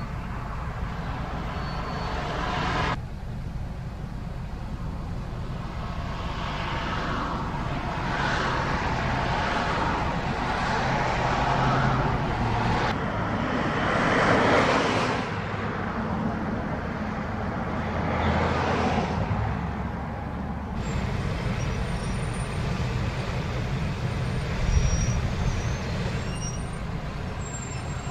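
Heavy-duty pickup trucks towing horse trailers driving past: low engine rumble with tyre and road noise that swells and fades as each rig goes by. The sound changes abruptly a few times where the recording is cut, and there is a single short knock near the end.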